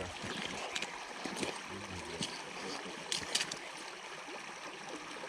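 Flowing stream water running steadily, with a few faint clicks scattered through it.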